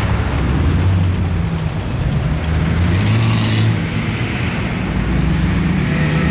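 Vehicle engine running steadily at low speed on a dirt trail, a low drone with a brief hiss about three seconds in.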